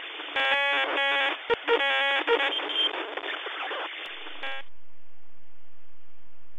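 Glitch-style electronic logo sting: buzzy, radio-like tones that stutter and cut in and out. It stops abruptly about four and a half seconds in, leaving a steady hiss.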